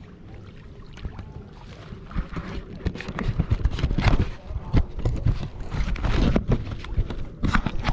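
Camera being handled and knocked about on a kayak: irregular bumps and rubbing against the deck and life vest, much louder from about two seconds in.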